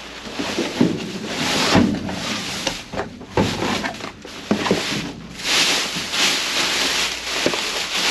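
Plastic garbage bags rustling and crinkling as gloved hands dig through them, with short knocks and scrapes from cardboard boxes being shifted and a boxed food package lifted out.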